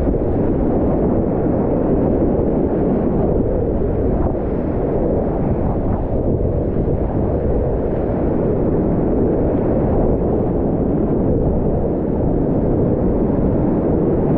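Whitewater rapids rushing loudly and steadily around a kayak running them, heard muffled with little high end.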